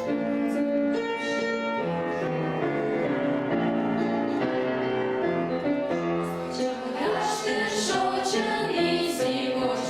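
Instrumental music: held chords under a moving melody line. Light percussive strikes join about six seconds in.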